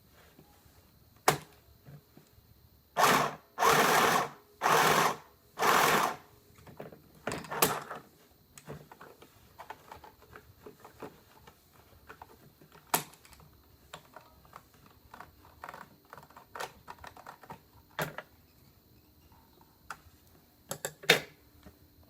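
Portable mini sewing machine run in four short bursts, one after another, a few seconds in, then a briefer run; sharp clicks and knocks of handling the machine and fabric come before and after.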